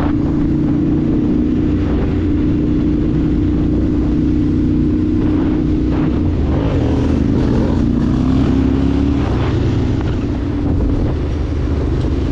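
Motorcycle engine running steadily under way, with wind noise on the microphone; the engine note drops for a couple of seconds in the middle as it eases off, then picks up again.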